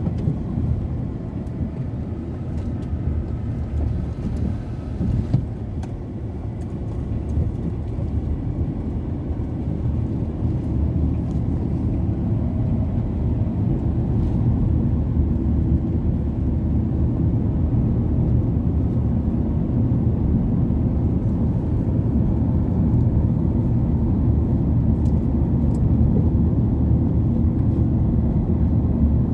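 Steady low rumble of a moving road vehicle, with no speech over it; it slowly grows a little louder during the first half, then holds steady.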